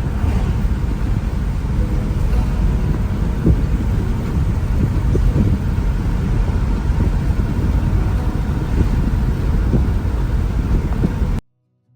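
Steady low road and engine rumble inside a moving car, cutting off abruptly near the end.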